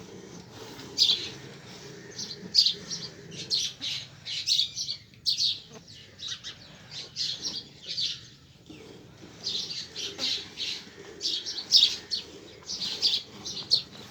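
Hand milking of a dairy buffalo: jets of milk squirting into a pail in a steady rhythm of short hissing spurts, about two to three a second, with a couple of brief pauses.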